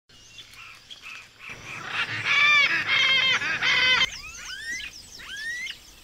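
A flock of white-faced whistling ducks calling. First comes a loud burst of many overlapping calls, then from about four seconds in, clear whistles that each rise sharply in pitch, given one after another.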